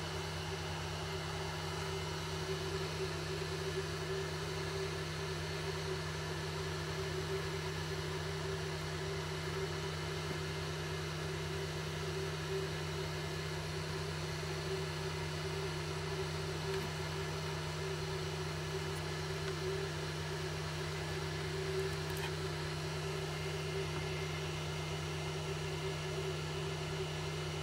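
Blower fan of a cheap hot air rework station running steadily: a constant electric hum with an even airy hiss.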